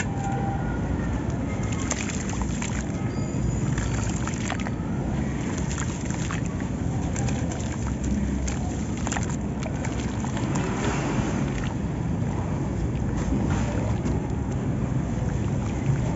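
Hands squeezing and crumbling wet sand-cement chunks under water in a plastic basin: sloshing and splashing with scattered gritty crackles. A steady low rumble lies under it throughout and is the loudest part.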